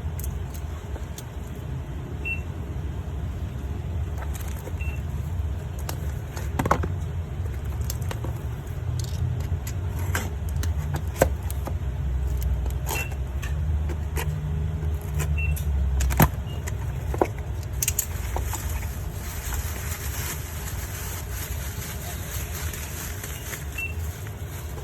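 A parcel being handled and opened: scattered sharp clicks and knocks of packaging over a steady low rumble, with crinkling rising from about eighteen seconds in.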